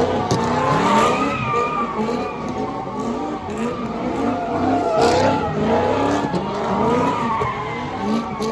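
A car spinning its tires in a smoky burnout, its engine revving up and down about twice a second while the tires squeal against the pavement.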